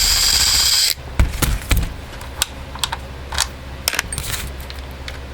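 Small metal tools and parts handled on a workbench during a chainsaw teardown: scattered sharp clicks and light metallic clatter. A steady hiss runs for about the first second and then stops.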